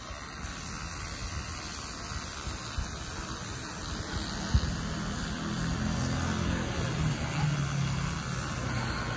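Street traffic noise: a steady hiss with a vehicle engine's low hum that comes in about halfway through and grows a little louder.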